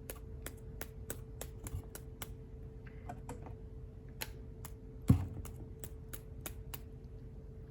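Quick, light, sharp taps, a paintbrush being tapped to spatter flecks of watercolour paint onto card stock, with one louder knock about five seconds in. A faint steady hum runs underneath.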